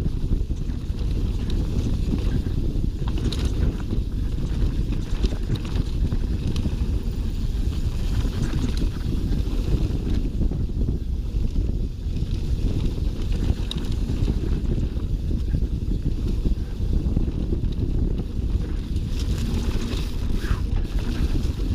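Mountain bike descending a dirt singletrack at speed: heavy wind buffeting on the microphone over the rumble of the Schwalbe Nobby Nic 29er tyres, with scattered clicks and rattles from the bike on bumps.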